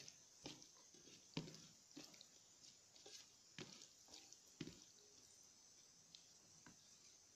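Faint, irregular wet squishes and light taps, about two a second and thinning out near the end, as fingers mash and mix roasted tomato pulp with chopped onion and green chilli against a steel plate.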